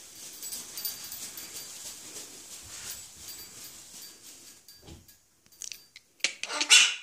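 Wing flaps of a small white cockatoo flying along a rope perch: a soft rustle for the first few seconds, a low thump about five seconds in, and a loud harsh burst near the end.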